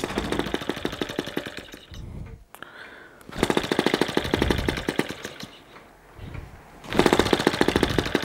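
Small split-cycle two-stroke model engine firing in rapid popping bursts. It runs for a second or two, dies down, then picks up again, three times over. It is running fitfully, not yet settled on its air intake setting.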